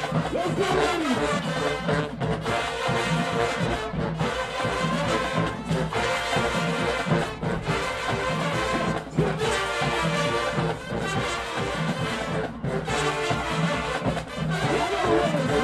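A brass-heavy marching band playing loud and continuous, with trombones and trumpets carrying the music. There are a few short, sharp breaks.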